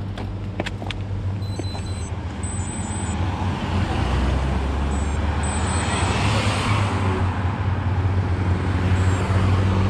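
Road traffic passing a roadside stop: a car drives past close by around the middle, its tyre and engine noise swelling and fading over a steady low engine hum. Near the end another vehicle's engine grows louder as it approaches.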